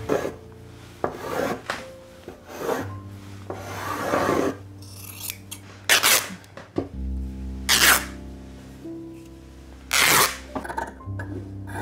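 Cloth rustling and swishing as a large piece of white fabric is gathered and handled, in a string of short swishes with three sharper, louder ones in the second half.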